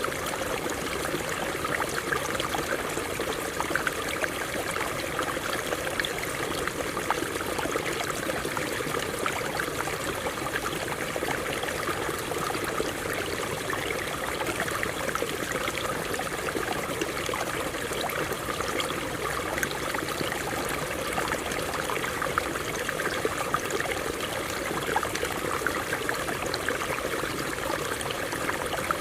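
Water running over rocks in a stream: a steady babble of many small splashes and trickles that does not change.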